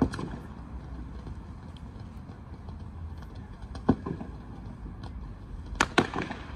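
Distant aerial fireworks bursting, each bang trailing an echo: one at the start, another about four seconds in, and two close together near the end, over a low steady background rumble.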